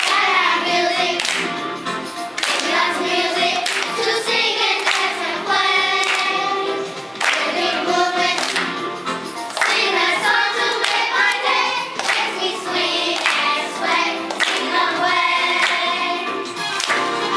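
A group of young children singing a song together in unison, with rhythmic hand claps through the singing.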